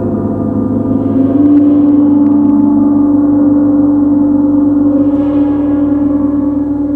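Meditative background music: a sustained, ringing drone of several steady tones, with a strong low tone swelling in about a second and a half in.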